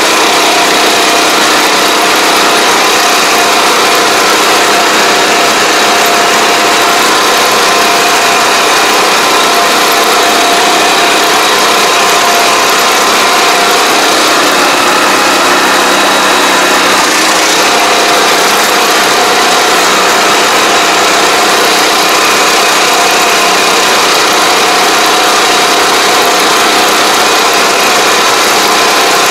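Small engine of a ride-on field machine running steadily close by, with a steady whine. Its note shifts briefly about halfway through, then settles again.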